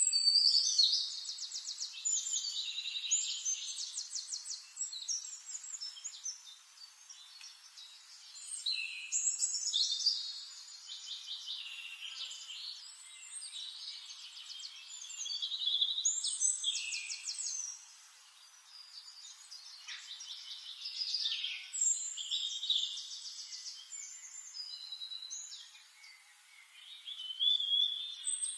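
Forest songbirds singing: high-pitched phrases of rapid trills and chirps, a new phrase every several seconds, with quieter chirps in between.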